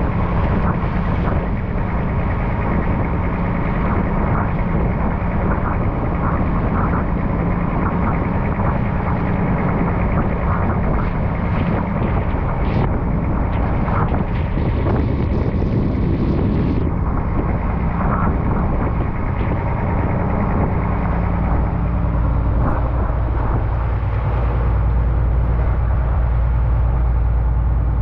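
A fishing boat's engine running steadily, with a constant low drone and wind on the microphone.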